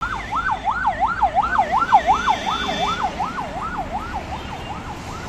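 Police vehicle siren in fast yelp mode: a rising-and-falling wail, about three sweeps a second, growing fainter toward the end.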